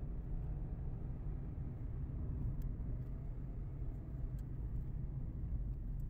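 Steady low rumbling noise, with two faint ticks a couple of seconds apart.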